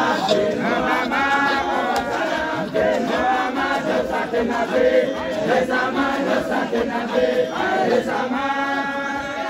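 A group of men chanting together in unison, many voices carrying the same rhythmic line, swelling louder about a second in and again near the end.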